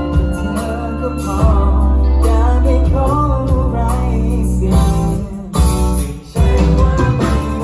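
Live band playing a pop song with a lead vocalist singing over strong bass and guitar; the music drops out briefly about six seconds in, then comes back in.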